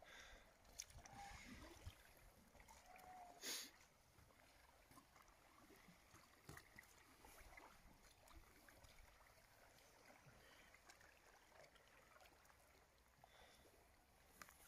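Near silence: faint stand-up paddleboard paddle strokes in calm water, with a few soft splashes, the loudest about three and a half seconds in.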